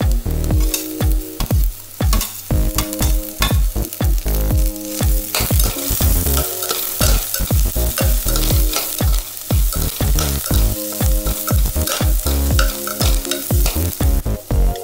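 Chopped onions and green chillies sizzling as they fry in oil in a non-stick pan, with a slotted spatula repeatedly stirring and scraping them around the pan. Background music plays underneath.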